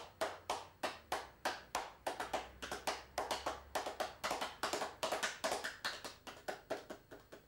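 Horse hoofbeats made by hand as a Foley effect: a steady clip-clop of hollow knocks, about four a second, dying away near the end.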